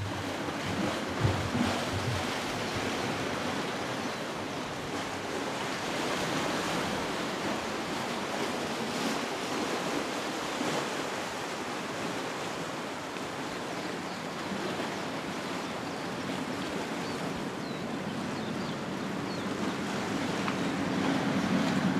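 Steady wash of sea surf with wind on the microphone, a few low buffets about a second in. A low rumble grows near the end.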